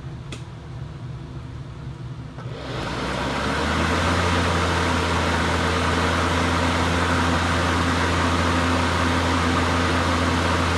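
Ryobi 40-volt battery lawnmower's electric motor starting about two and a half seconds in, spinning up over a second or so, then running steadily with a hum and a rushing noise. It runs again with a replaced circuit board, which shows the old board was the fault.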